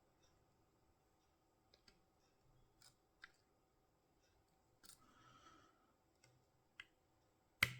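Faint, scattered small clicks from picking a tubular hex core lock, pins clicking as they set under tension, with a brief scraping rustle about five seconds in.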